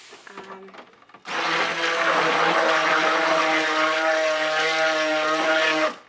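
Handheld stick blender running in a bucket of cold process soap batter, mixing it. It starts suddenly about a second in, runs at a steady pitch with a churning hiss, and stops just before the end.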